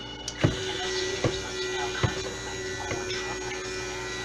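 Stick blender motor running steadily in a bucket of cold-process soap batter, blending the batter to emulsion, with a few knocks about a second apart.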